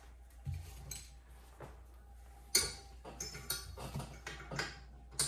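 Scattered metallic clicks, clinks and knocks of a steel brake pedal and pedal-box parts being handled and worked into place. The sharpest knock comes about two and a half seconds in, and another comes just before the end.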